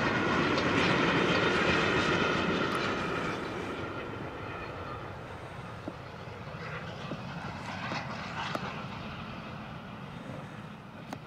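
LNER A4 Pacific 4464 Bittern, a three-cylinder steam locomotive, working hard with a train: a steady rush of exhaust, loud at first and fading gradually as it draws away.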